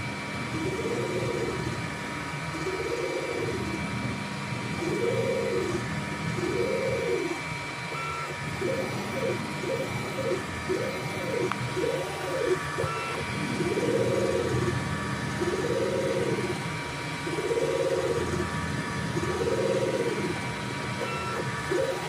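3D printer running, its stepper motors whining in repeated rising-and-falling sweeps as the print head moves, roughly one per second, with quicker runs of short sweeps in between. A steady high tone sounds underneath.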